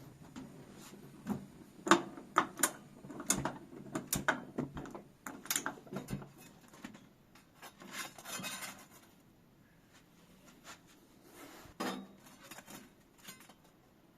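Kitchen handling sounds: a quick run of knocks and clinks with some scraping, as of utensils and dishes being handled, thinning out about halfway through, with a few more knocks near the end.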